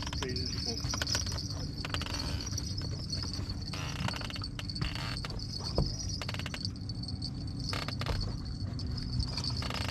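Steady high-pitched insect buzz, like crickets, over a constant low rumble, with scattered short clicks and knocks.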